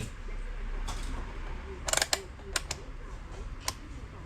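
A handful of sharp mechanical clicks and clacks, with the loudest double click about halfway through, over a faint background voice.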